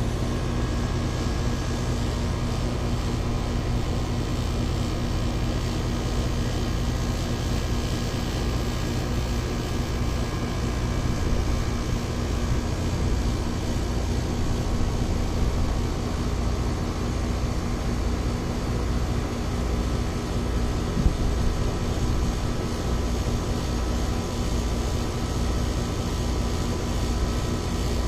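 Ameristar 4-ton air conditioner's outdoor condenser unit running steadily, its compressor humming under the condenser fan's rush of air, now on a freshly replaced 60/5 dual run capacitor.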